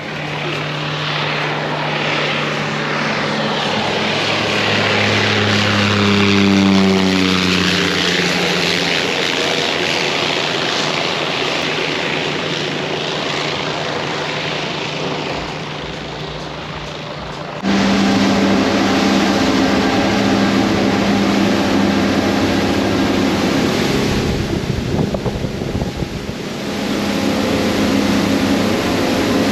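Seaplane's propeller engine drone as it comes in to land; its pitch drops as it passes close about seven seconds in. After an abrupt cut a little past halfway, a steady engine drone continues.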